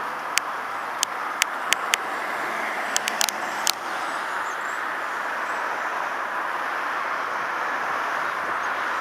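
Steady road traffic noise from passing cars, with a scatter of sharp clicks in the first four seconds.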